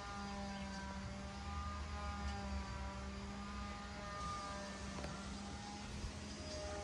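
A steady low hum with a faint rumble beneath it and short faint tones scattered above.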